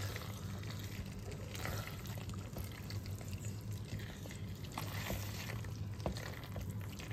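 Silicone spatula stirring spaghetti through thick, simmering tomato sauce in a skillet: wet, sticky stirring with small scattered clicks, over a steady low hum.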